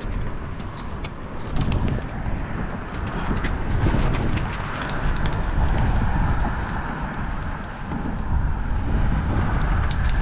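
Low rumbling outdoor noise that swells and fades several times, with light clicking throughout.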